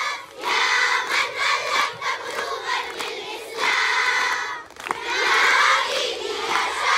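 A large crowd of schoolgirls chanting loudly in unison, in phrases of a second or so with short breaks between them.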